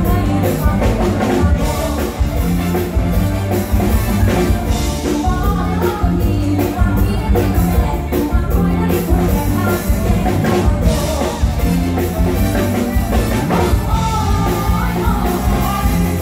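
Live Thai luk thung band music: a woman singing into a microphone over a full band with a steady drum beat, heard loud through the stage PA.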